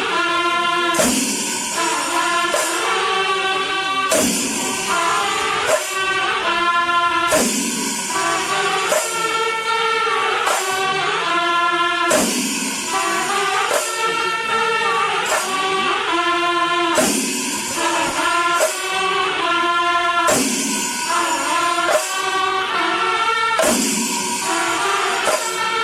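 Music with held melodic notes and a jingling high percussion, in a pattern repeating about every two seconds.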